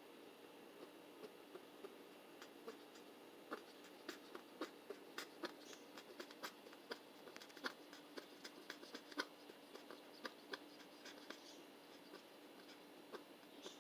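Dozens of faint, irregular clicks and scratchy ticks, sparse at first, thickest through the middle and thinning near the end, from a blue-headed pionus parrot having her head scratched.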